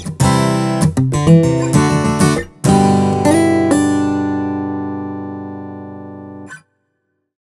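Sampled acoustic guitar patch, multisampled from a Yamaha Tyros 1 keyboard, played as a quick run of notes and chords. It then plays a last chord with two notes added on top, which rings and fades before cutting off abruptly.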